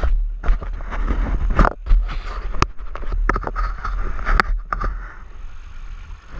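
Repeated knocks, clicks and rubbing close to the camera over a low rumble, as the camera is bumped and handled. After about five seconds it settles to a quieter steady hiss.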